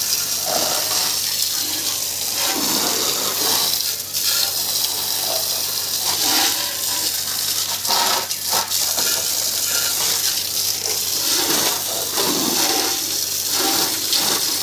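A steady stream of water pouring and splashing onto a concrete floor and over a motorcycle as it is washed, a continuous hissing splash.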